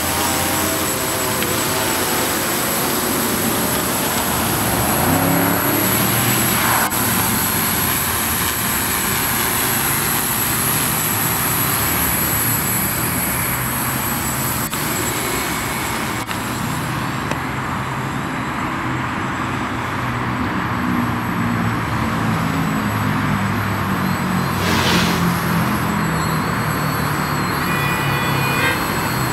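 Quadcopter's electric motors and propellers buzzing in flight, the pitch drifting up and down as the motor speeds keep changing, over a steady rush of noise.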